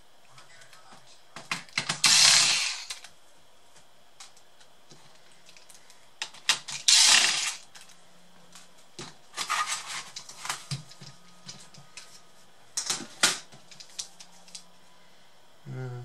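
Hand work on a Lenovo G50 laptop's plastic base: light clicks and taps of a screwdriver, with a few short scraping sounds, loudest about two seconds in and again about seven seconds in, as the parts are handled and the optical drive is taken out.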